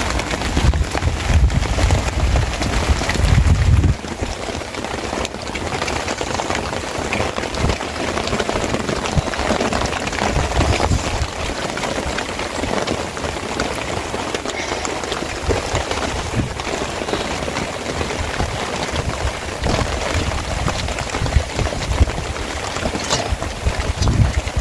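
Steady rain pattering with many small drop ticks, and a low rumble in the first few seconds and again near the end.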